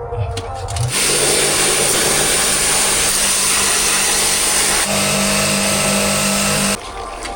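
Electric jet-pump pressure washer running, its motor hum under a loud rushing hiss. The hiss starts suddenly about a second in, the hum steps up in pitch about five seconds in, and it cuts off sharply near the end.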